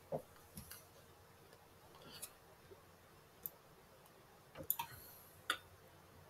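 Faint, scattered clicks of a computer mouse, about seven in all, with a quick cluster near the end.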